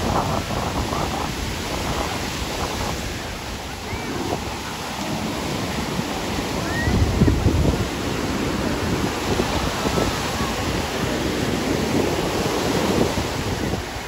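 Ocean surf breaking and washing up the sand, with wind rumbling on the microphone and faint voices of people on the beach. A louder low surge comes about seven seconds in.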